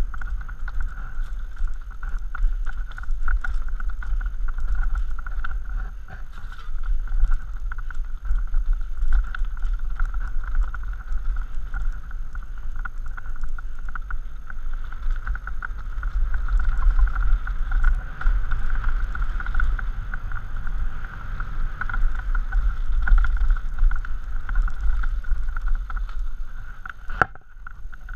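Mountain bike riding fast downhill over rocky dirt singletrack: wind buffeting the microphone as a heavy low rumble, with tyres crunching on dirt and stones and frequent rattles and clacks from the bike. A steady high buzz runs under it, and the noise eases briefly near the end.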